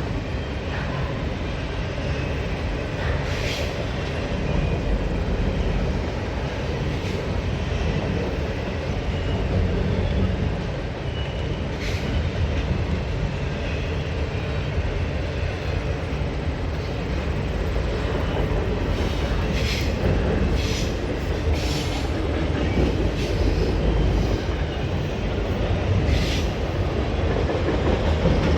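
Norfolk Southern double-stack freight train rolling past: a steady rumble of steel wheels on the rails, with sharp clicks now and then and a faint thin wheel squeal.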